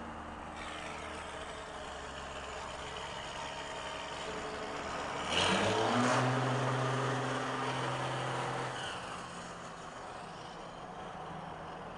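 A 1993 Dodge pickup's Cummins turbo-diesel inline-six with a straight-pipe exhaust, heard from inside the cab in a road tunnel. It runs steadily at first. About five seconds in, the engine suddenly gets much louder and its pitch steps up as the throttle is opened, and it stays there for about three seconds. Then it drops back to a steady cruise.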